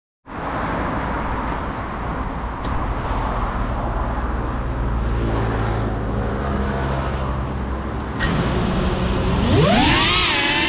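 Steady low rumble, then about eight seconds in the Cinelog 35 cinewhoop's brushless motors start with a high thin whine. About a second later they spin up with a rising, wavering whine as the drone lifts off.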